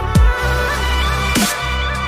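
Electronic dance music: deep kick-drum hits that drop in pitch, about one a second, over a sustained bass line and synth melody.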